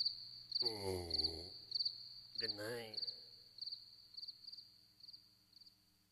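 Crickets chirping in an even rhythm, roughly every half second, gradually fading out near the end. A man's voice mutters briefly twice in the first half.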